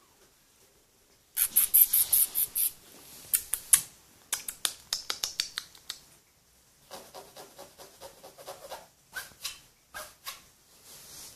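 Kitten's claws scratching and scrabbling on the mesh fabric of a soft pet carrier: fast runs of sharp scratchy strokes in three spells, the loudest in the first few seconds.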